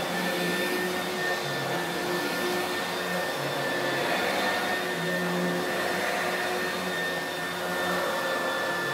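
1988 Oreck XL lightweight upright vacuum cleaner running steadily: a constant high motor whine over the rush of air.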